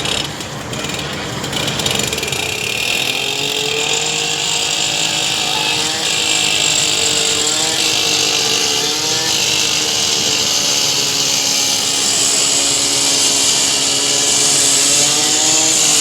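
Engine-driven power cutter running under load, likely cutting into the coach's metal, its engine note wavering slightly over a steady high hiss.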